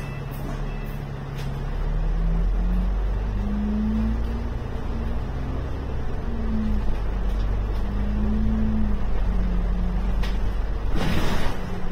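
Alexander Dennis Enviro 500 MMC double-decker bus heard from inside, its engine and driveline running under way with a deep rumble and a note that steps up and down through the gears, louder as it pulls on about a second and a half in. Near the end comes a loud burst of air hiss lasting about a second.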